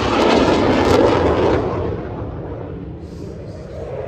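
BAE Systems Hawk 127 jet trainer's single Adour turbofan passing in a loud flyby. The high hiss fades out about a second and a half in as the jet draws away, leaving a low rumble that swells again near the end.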